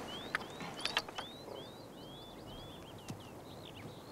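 Small birds chirping in quick, varied short calls, with a few sharp clicks and knocks in the first second or so and one more near three seconds.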